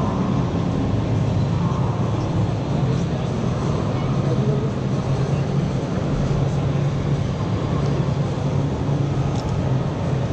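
Busy motor-show hall ambience: steady crowd chatter over a low hum.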